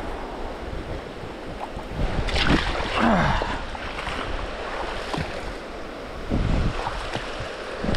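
Shallow water sloshing and splashing as a bamboo pole is pushed and stirred through it, louder about two to three seconds in and again about six and a half seconds in. A brief sliding, pitched sound comes about two and a half seconds in.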